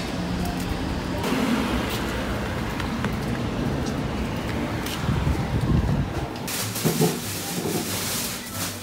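Street noise with passing road traffic. About two thirds of the way through, a louder rushing hiss comes in and lasts almost to the end.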